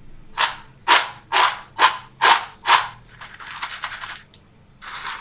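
Crisp fried maida snacks shaped like cashews rattling in a stainless steel bowl as it is shaken: six sharp rhythmic shakes about two a second, then a quicker continuous rattle, then one more shake near the end. The dry clatter shows how crispy the snacks are.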